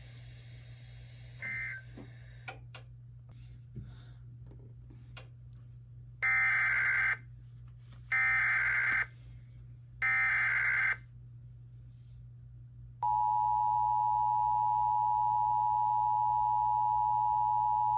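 Emergency Alert System tones: three one-second bursts of SAME digital header data, a second apart, then the EAS two-tone attention signal, a steady dual tone starting about 13 seconds in. A low hum runs underneath.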